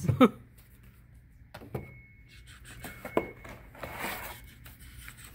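Vinyl record jackets being handled while a box of new records is unpacked: soft sliding rubs and a few light taps and clicks.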